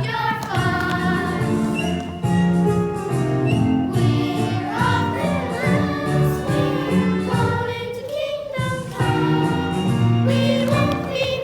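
A musical-theater number sung in chorus by a cast of young voices over instrumental accompaniment.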